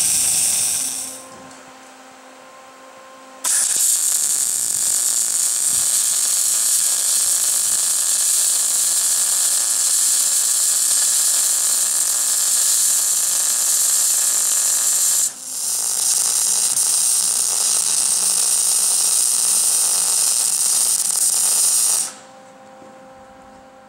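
Wire-feed (MIG) welder arc welding steel exhaust pipe joints, a steady hiss. It stops briefly a second in, then runs for about twelve seconds, breaks off for a moment and runs again for about seven seconds before stopping.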